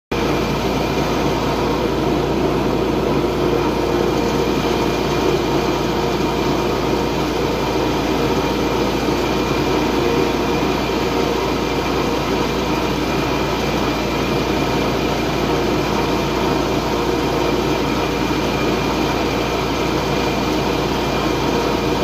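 ATV-towed wood chipper's engine running steadily at speed with no branch being fed, an even mechanical drone.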